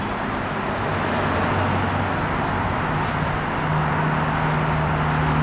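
Steady road-traffic noise with a low engine hum that steps up in pitch about halfway through.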